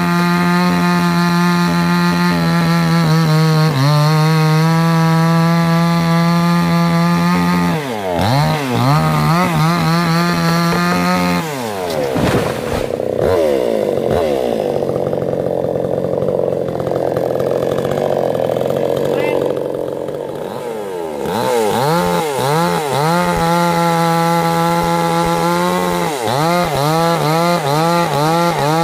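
Two-stroke chainsaw cutting through a large trembesi trunk, held at steady full throttle at first. It is then throttled up and down, drops to lower revs for several seconds in the middle, and is revved repeatedly near the end as it bites into the wood again.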